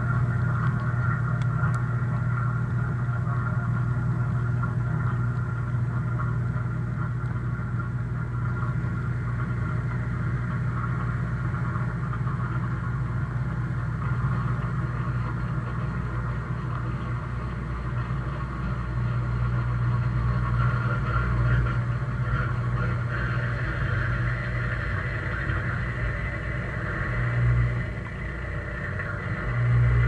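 Dishwasher running its wash cycle, heard from inside the tub: the circulation pump motor hums steadily under a constant hiss of water spraying onto the dishes. The hum briefly dips near the end.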